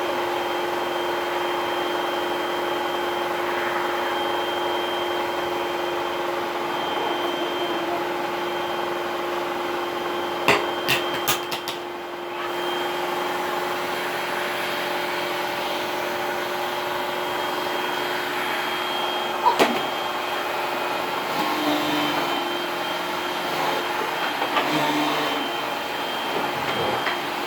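Vacuum cleaner running steadily with a whining motor hum, with a few sharp knocks and clicks about ten seconds in and again near twenty seconds.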